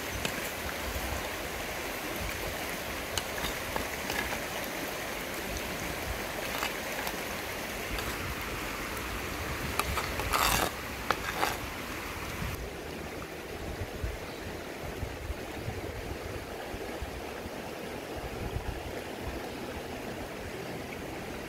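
Steady rushing of a stream, with a metal spoon scraping and knocking against a clay cooking pot a few times, loudest about ten seconds in.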